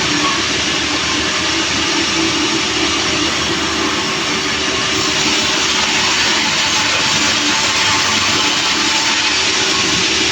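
Sawmill saw running steadily through a large log, a loud continuous machine noise with a steady hum under a dense high hiss of cutting.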